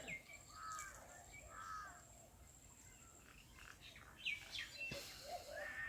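Faint bird calls: two arching call notes in the first two seconds, then after a lull a string of short chirps and whistled notes near the end.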